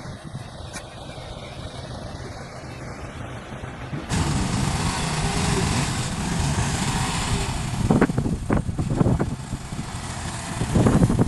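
Heavy earthmoving machine's diesel engine running. About four seconds in it turns suddenly louder and harsher, and a string of short, sharp knocks follows in the last few seconds.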